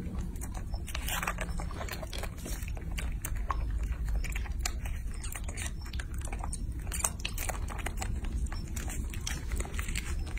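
Baby macaques sucking and smacking at the spout of a plastic squeeze pouch of candy: a run of irregular small wet clicks and smacks.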